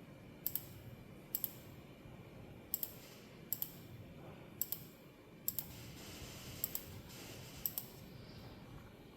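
Computer mouse clicking about eight times, each a quick double tick of button press and release, at irregular intervals of about a second, selecting hole edges one by one in CAM software.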